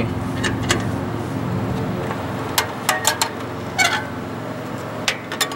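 A brake spring tool working the return springs off a drum brake shoe: scattered sharp metallic clicks and clinks in small groups, over a steady low hum.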